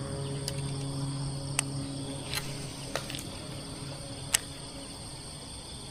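Steady high-pitched insect chirring in the background, broken by a few short sharp clicks; the loudest click comes about four seconds in.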